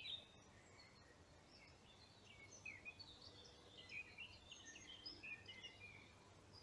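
Faint birdsong: small birds chirping and twittering now and then over low background hiss.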